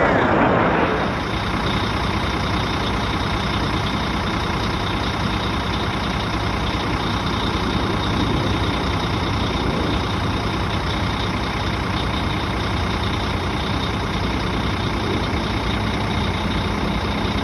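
A jet passes, its pitch falling, and is loudest in the first second. A steady jet-engine drone with a constant high whine then holds on.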